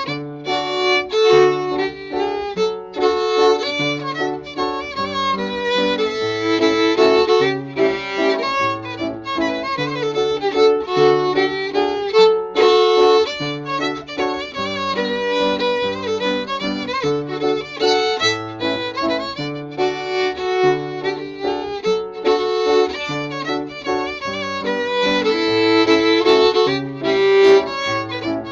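Fiddle and piano playing a hambo, a Scandinavian old-time dance tune in three-quarter time. The fiddle carries the melody over the piano's accompaniment of regularly alternating low notes.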